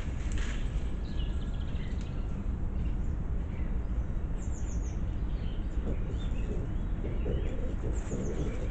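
Wild boar piglets rustling through dry leaf litter, the rustling growing busier in the second half as they run about, over a steady low rumble. Songbirds chirp, with a quick descending trill about four and a half seconds in and again near the end.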